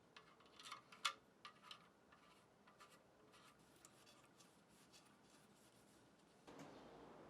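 Faint clicks and scratchy rubbing, busiest in the first two seconds, then a few light ticks; a steady hiss comes up near the end.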